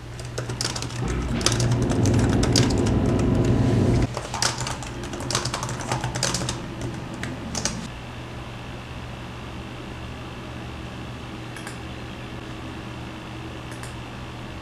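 Typing on a laptop keyboard: a run of key clicks over the first several seconds, joined early on by a loud low rumble for about three seconds. After that a steady hum with a faint high tone, and a couple of single clicks.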